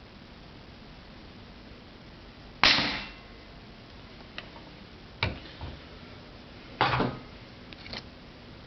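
Hatsan 155 Torpedo gas-ram air rifle firing a .25 pellet: one sharp report with a short ring-off nearly three seconds in. Several softer knocks and clunks follow.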